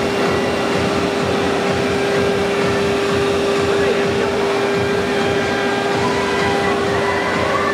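Longdiao CNC router machining center's spindle running at a steady high whine while the bit cuts into the board, with a rough, grinding cutting noise underneath.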